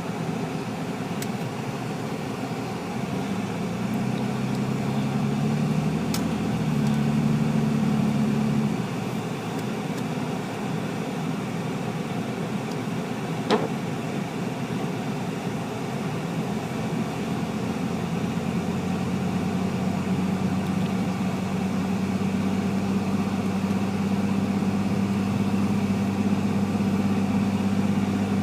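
Car engine running, a steady low hum whose pitch shifts for a few seconds early on and then holds even, with one short click about halfway through.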